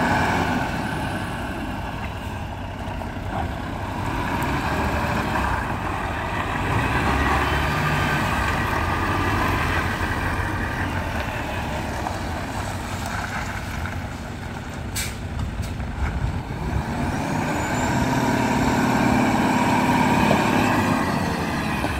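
Volvo FH500 tractor unit's 13-litre six-cylinder diesel running steadily, getting louder and higher in pitch for the last few seconds. A single short sharp sound cuts in about fifteen seconds in.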